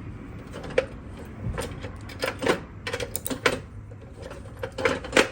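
Ratchet wrench with a 13 mm socket clicking in short, irregular runs, with a few sharp metallic knocks, as bolts on a truck are loosened.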